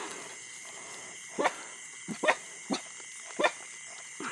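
A dog barking: about six short barks at uneven intervals, over a steady chirring of insects.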